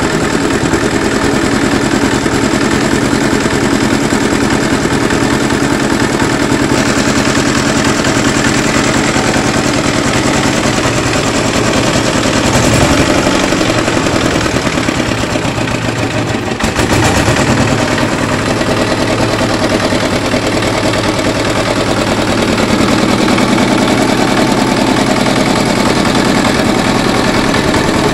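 Small engine running on a test, a loud, rapid, even clatter that holds steady, with a brief dip and recovery in speed about halfway through.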